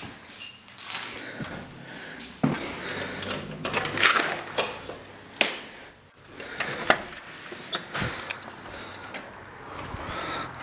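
Scattered knocks, clicks and rustling from someone walking with a handheld camera and opening a door; a few sharp clicks about five and seven seconds in.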